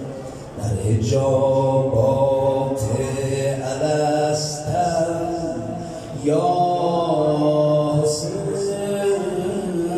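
A man chanting a Persian religious majlis chant into a microphone, his voice amplified. He sings long held, wavering phrases, with brief breaths about half a second in and around six seconds.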